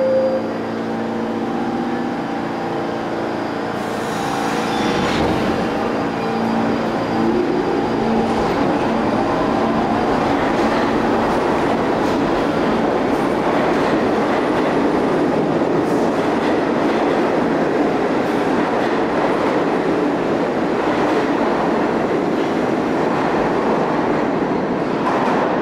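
R46 subway train pulling out of an underground station: a steady hum at first, then the traction motors whine upward in pitch as it accelerates. After that comes a continuous rumble and clatter of the cars and wheels running past.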